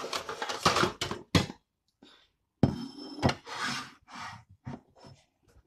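Handling noise as kitchen items are moved about on a tray: a string of knocks and thunks with rustling and scraping between them, the sharpest knocks a little under a second in, at about a second and a half, and at about three seconds.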